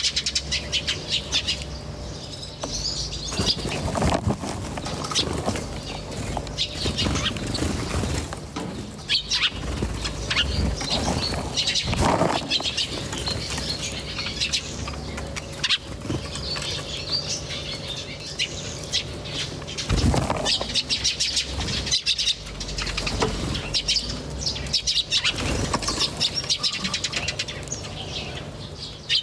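Small birds chirping and twittering continuously, many short high calls overlapping, with wings fluttering now and then.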